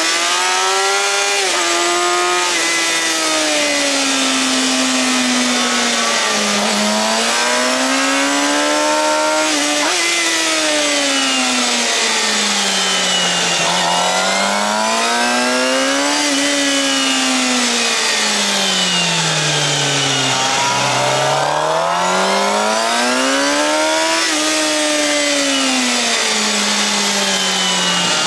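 Suzuki GSX-R750's inline-four engine through a Yoshimura R-11 slip-on exhaust, ridden hard on a race track. The engine note climbs under acceleration and falls away under braking into the corners, about four times over, with a steady hiss of wind noise.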